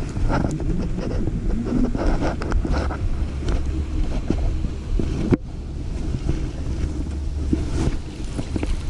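Wind buffeting the microphone over a steady low hum, with scattered small knocks and clicks. There is a sharp click about halfway through.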